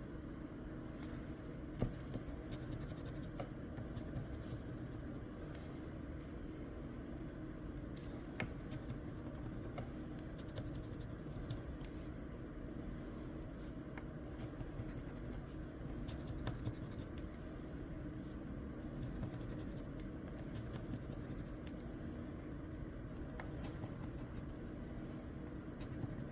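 Scratch-off lottery ticket being scratched in many short, scattered strokes, the coating rubbed off letter by letter over a steady low background hum.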